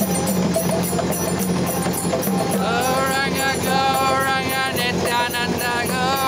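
Kirtan music: a piano accordion and a mridanga drum with karatalas hand cymbals clashing in a steady beat. Voices come in singing the chant about two and a half seconds in.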